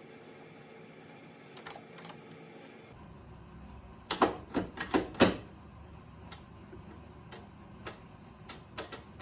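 Sharp clicks and knocks from things being handled while unpacking: a quick run of four or five loud clicks about four seconds in, and scattered light ticks near the end.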